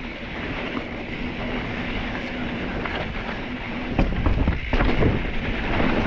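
Mountain bike ridden fast on a dry hard-pack dirt trail: wind rushes over the microphone over a steady rolling noise from the knobby tyres. From about four seconds in come sharp knocks and rattles as the bike goes over bumps.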